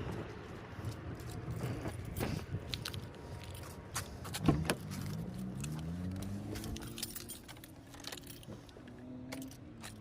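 Keys jangling and clicking, then about halfway through a 2007 Subaru Impreza's flat-four engine fires and runs, its pitch rising and then settling. The car is being started on a boost from another battery because its own battery is dead.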